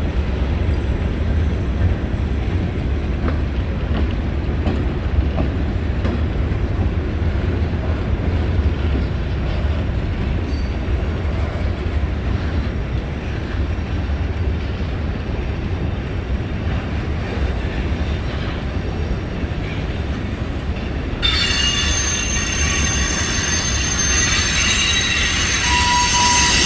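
Mixed freight train rolling past with a steady low rumble of wheels on rail; about three-quarters of the way through, the wheels start squealing in several high, steady tones that carry on to the end.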